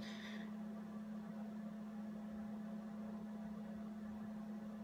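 A steady low hum, one unchanging tone, over faint room hiss.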